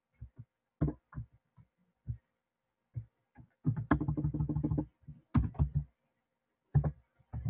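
Typing on a computer keyboard: scattered keystrokes, with a quick run of many keys about four seconds in.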